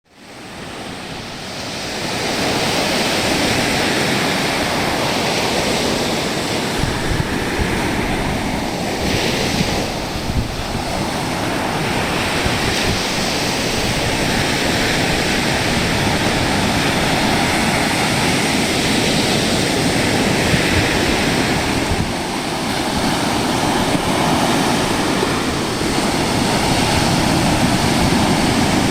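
Ocean surf washing onto a beach: a continuous rush of breaking waves that swells and eases every few seconds, fading in over the first two seconds.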